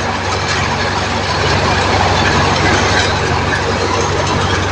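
John Deere 5050D tractor's three-cylinder diesel engine running steadily at an even speed.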